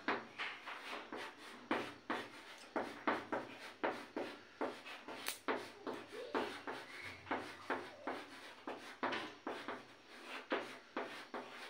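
Chalk writing on a blackboard: a quick, irregular run of short taps and scrapes, several strokes a second, as a word is written out.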